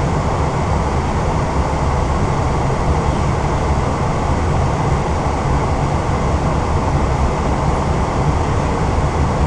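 Steady flight-deck noise of an Airbus A320 on approach: a constant low rush of air and engine noise with no changes or distinct events.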